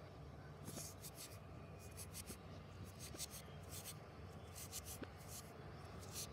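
The rubber end of an erasable pen rubbing back and forth over paper, erasing the ink, in a faint, irregular series of short scratchy strokes.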